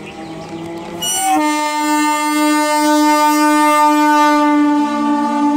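Indian Railways EMU local train sounding its horn as it approaches. A brief higher note comes about a second in, then one long steady blast of about four seconds, with a lower tone joining near the end.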